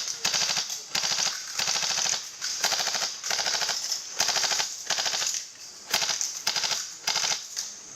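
Airsoft electric gun, a Tokyo Marui Steyr HC, firing full-auto in about a dozen short bursts, each a fast, even rattle of shots lasting under half a second.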